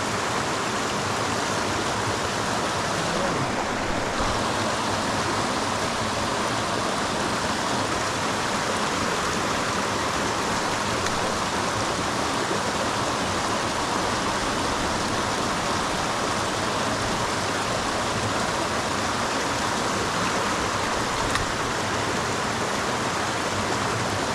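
Creek water rushing, a steady even noise.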